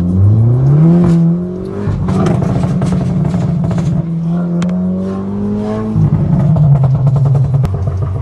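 Volkswagen Golf R's turbocharged four-cylinder engine revving: the revs climb over the first second, hold high for about five seconds with sharp cracks, then drop about six seconds in to a lower, pulsing note.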